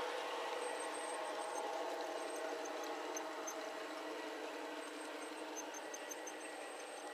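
Large-scale garden-railway freight cars rolling past on outdoor track: a steady rolling rattle of wheels on rails that slowly fades as the last cars and the caboose go by, with faint high squeaks over it.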